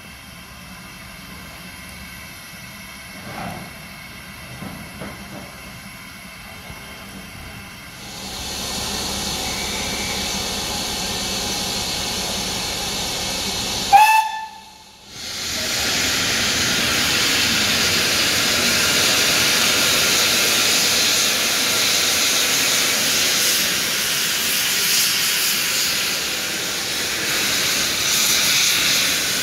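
BR Standard Class 4 2-6-4 tank steam locomotive 80097 hissing steam from its cylinder drain cocks, the hiss swelling about a third of the way in. A short whistle toot about halfway through is cut off abruptly, and a loud steady steam hiss follows.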